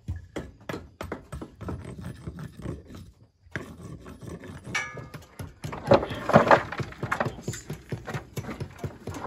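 Rapid, fairly even knocking, about three strikes a second, with a short break about three seconds in and a louder, busier stretch about six seconds in.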